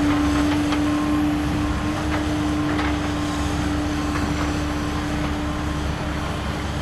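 A small electric motor of a toy vehicle humming steadily over a low rumble, with a few light clicks; the hum fades out about halfway through.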